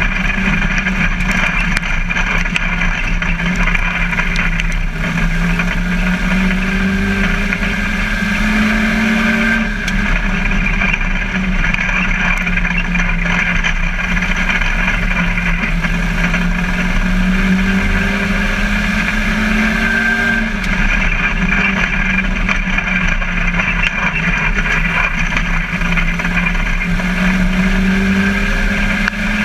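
Ministock race car engine running hard, heard from inside the cockpit. The note climbs slowly for about ten seconds, then drops suddenly as the driver lifts off. This happens three times: the car is accelerating down the straights and backing off for the turns, lap after lap.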